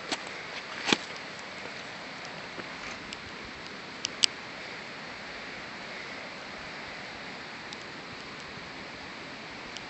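A steady hiss with a few sharp clicks: one about a second in, and two close together about four seconds in.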